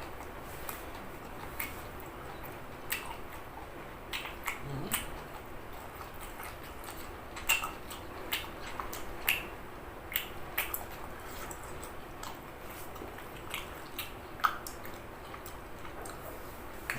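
A person chewing steamed squid with a spicy lime dressing, with irregular wet mouth clicks and smacks.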